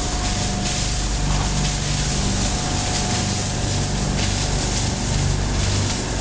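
Ice delivery machine running steadily: its electric motor drives the conveyor while ice pours out of the chute. It is a continuous rushing noise with a steady mid-pitched whine and a low hum underneath.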